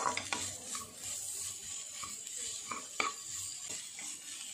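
Baby potatoes and sliced onions sizzling in a hot nonstick kadai while a wooden spatula stirs and scrapes through them, with a few short sharp knocks, the loudest about three seconds in.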